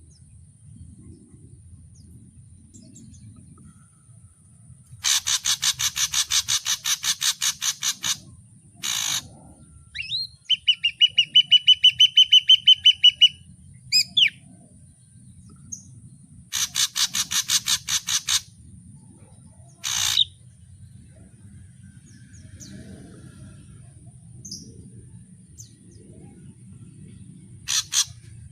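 Ashy drongo singing a varied song: two fast runs of harsh, rattling repeated notes, a quick run of clear whistled notes in the middle, and a few single sharp calls between them, with a pause near the end before one last call.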